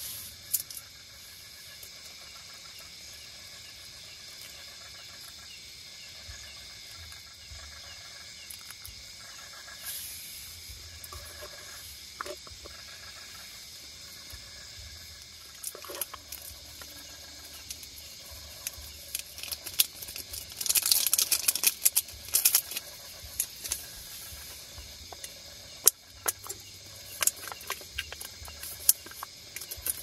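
Plastic food packet and seasoning sachets crinkling as they are handled, loudest a few seconds past the middle, with sharp clicks here and there. A steady chorus of crickets runs underneath.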